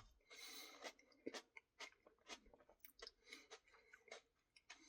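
Faint chewing: soft, irregular crunchy and wet mouth clicks.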